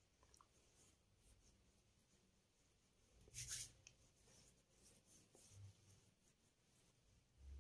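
Near silence, with faint soft rubbing of hands spreading face serum over the skin; the loudest is a short brushing sound about three and a half seconds in.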